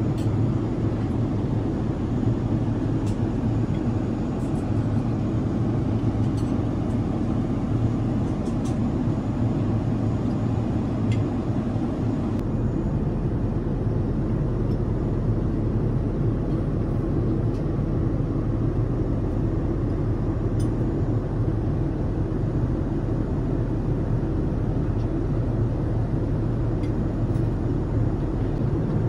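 Steady low rumble of a Boeing 787-10's cabin in flight: engine and airflow noise, with a few faint clicks in the first dozen seconds.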